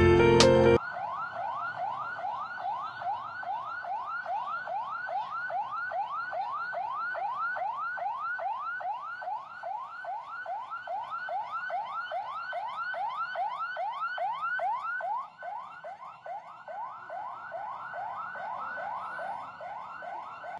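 Emergency vehicle siren sounding in a fast yelp: a rising whoop repeated about two and a half times a second, on and on.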